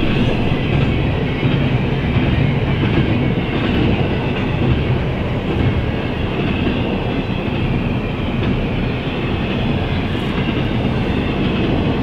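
Double-stack container freight train passing close by at a level crossing: steady, loud noise of the cars rolling along the rails.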